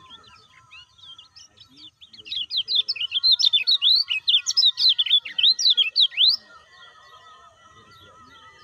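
Kecial kuning (yellow white-eye) singing a loud, rapid run of high, sharply rising and falling chirps that starts about two seconds in and stops after about four seconds, with fainter chirping before and after.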